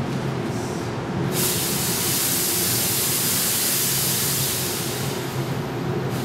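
Steady hum of a powerful mobile extraction fan drawing air out of a paint tent. From about a second and a half in until about five seconds in, a loud hiss sounds as test smoke is jetted into the tent.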